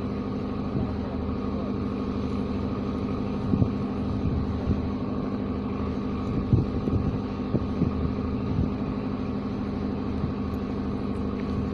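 An engine running steadily, a constant droning hum, with a few faint knocks.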